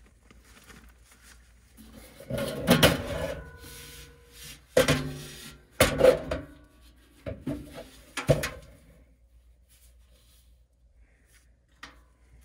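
Sheet-metal furnace blower housing being worked out of its cabinet: a series of clunks and scrapes of metal on metal, some with a brief ring. The loudest come about two to three seconds in and around five to six seconds in, with a last knock near eight seconds.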